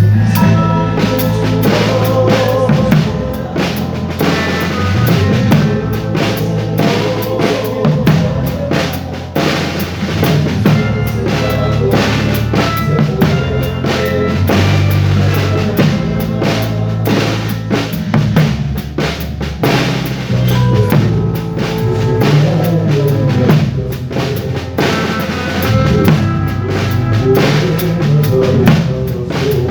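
A band playing rock music: a drum kit with bass drum and snare hits driving a steady beat over a low bass line and other pitched instruments.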